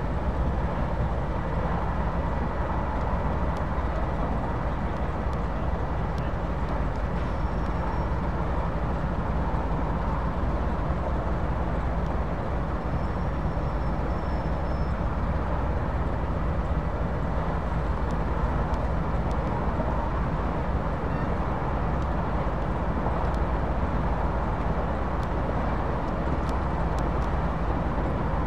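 British Rail Class 08 diesel-electric shunter's English Electric six-cylinder diesel engine running steadily at low revs, a deep even rumble with a faint steady whine above it.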